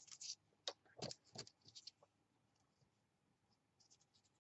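Faint rustling and tapping of a paper butterfly cut-out being picked up and handled on a tabletop: a few short soft sounds in the first two seconds.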